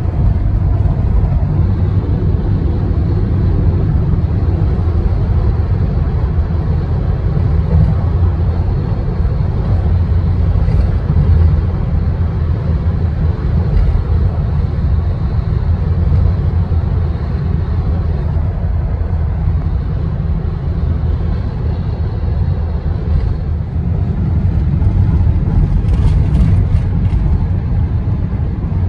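Cabin noise inside a 2021 Toyota Kijang Innova Reborn at speed: a steady low rumble of road and wind noise, with wind rushing past the A-pillar.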